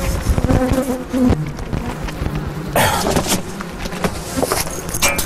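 Honeybees buzzing around the hives, a wavering hum with a brief rustle about three seconds in and another near the end.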